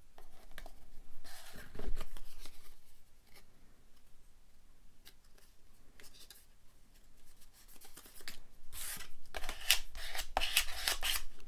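Paper being handled and rubbed by hand: soft rustling at first, then louder, busier rubbing over the last three seconds or so.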